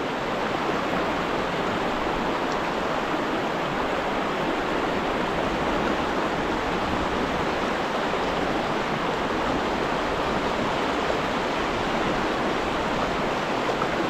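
A stream running: a steady, even rush of flowing water.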